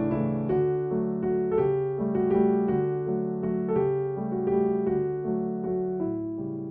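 Background piano music: a steady flow of single notes over held lower notes.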